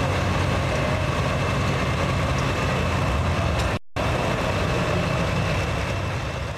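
Turbocharged diesel engine of an International 1066 pulling tractor running hard under load as it pulls the sled, a loud steady drone with a steady high whine above it. The sound cuts out for a split second about four seconds in.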